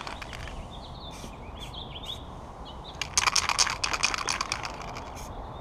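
An aerosol spray-paint can being shaken, its mixing ball rattling in a dense burst for about a second and a half, starting about three seconds in. Faint bird chirps come before it.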